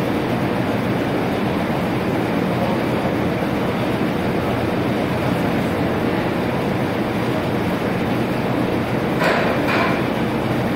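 Steady loud rumble of foundry machinery, with two short louder bursts about nine seconds in as molten bell metal starts to pour from the tipped ladle into the bell mold.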